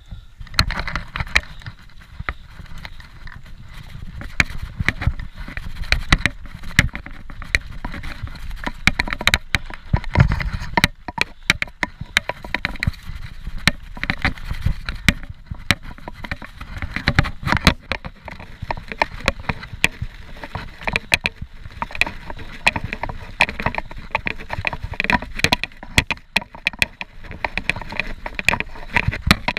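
Scott Genius 740 full-suspension mountain bike descending a rough dirt trail: a constant clatter of knocks and rattles from the bike and camera over bumps, with tyre noise and wind rumbling on the microphone.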